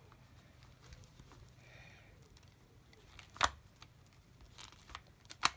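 A hand-held popper (snap fastener) setting tool pressing a rivet through a canvas belt: one sharp click about three and a half seconds in, a few fainter clicks, then another sharp click near the end.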